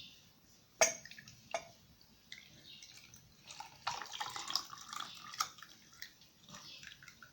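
Ginger water poured into a container: two sharp clinks in the first two seconds, then liquid pouring and splashing for about two seconds near the middle.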